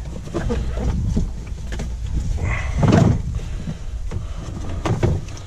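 Hand-handling noise: nylon harness webbing being pulled through the slots of a hard plastic console panel, with scattered scrapes and light clicks of the plastic and one louder scuff about three seconds in.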